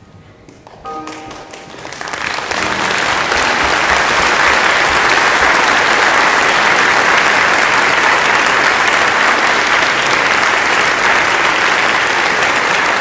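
Audience applauding, starting about two seconds in and building quickly to steady clapping. Just before it, the last notes of a violin and piano fade.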